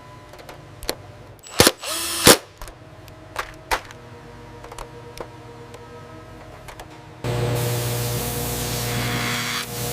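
Factory work sounds: a handful of sharp metallic clicks and knocks, the loudest just over two seconds in. About seven seconds in, a steady machine hiss with a low hum starts suddenly.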